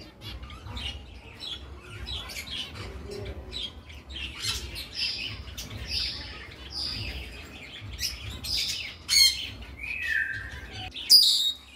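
Jumbo zebra finches calling: a run of short, nasal chirps one after another, with two louder calls near the end.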